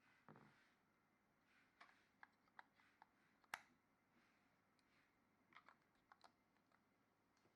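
Faint, scattered light clicks and taps over near-silent room tone, the sharpest about three and a half seconds in.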